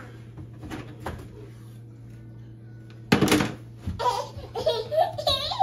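A loud, brief clattering knock about three seconds in, after faint knocking. Then a baby begins fussing in short wavering cries, starting to cry.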